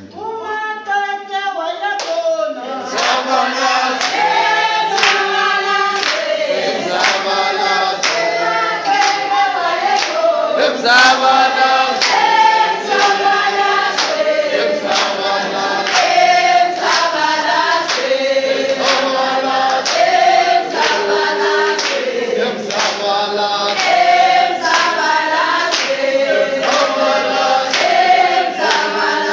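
A group of mostly women's voices singing together unaccompanied, with hand clapping keeping a steady beat about once a second.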